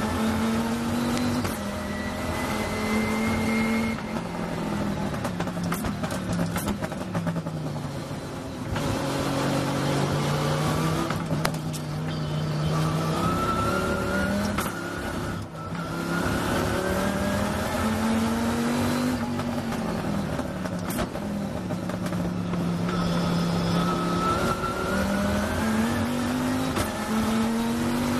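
Chrysler Viper GT3's V10 racing engine heard from on board, pulling hard through the gears: its note rises and drops back at each gearchange. It eases off under braking around the middle, then climbs again as the car accelerates.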